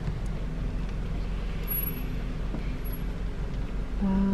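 Steady engine and road rumble heard inside a moving car's cabin.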